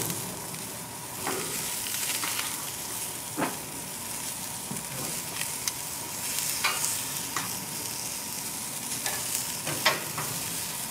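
Vegetables sizzling on a hot grill grate, a steady hiss, with a few sharp clicks of metal tongs against the grate as pepper strips are laid on.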